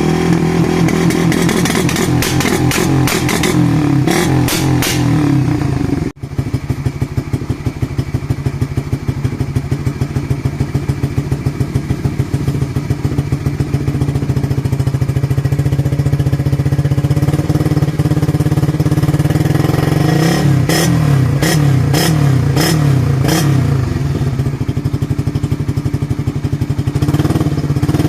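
Suzuki Raider 150 Fi's single-cylinder four-stroke engine exhausting through an aftermarket black canister muffler with no catalytic converter. It is blipped in quick revs for the first few seconds, idles with a steady pulsing beat, then is revved in a series of sharp blips about two-thirds of the way through before settling back to idle.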